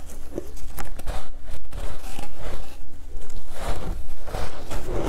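Close-up biting and crunching of snowy ice coated in matcha powder, in irregular crisp crunches that grow denser and louder near the end.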